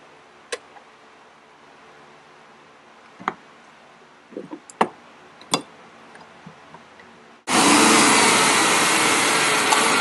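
A few faint clicks and taps as rubber vacuum hose is pushed onto a plastic tee. About seven and a half seconds in, the car's engine starts abruptly and runs loud and steady, supplying vacuum for a gauge test of the vacuum-controlled HVAC lines.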